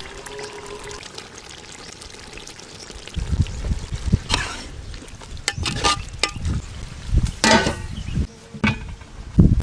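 Liquid being poured and splashing in a cooking pot, broken by scattered sharp clicks and knocks.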